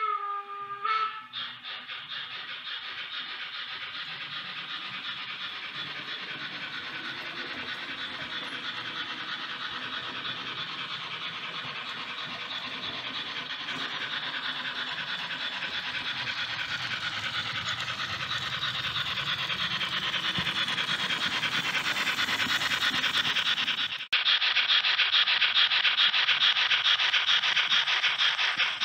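Märklin H0 model steam locomotive running on three-rail track: a short whistle toot right at the start, then a fast, even chuffing and rolling noise that grows slowly louder. It breaks off for a moment about 24 seconds in and comes back louder.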